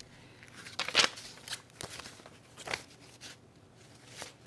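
Paper banknotes being handled and shuffled: a few short rustles and flicks of bills, the loudest about a second in.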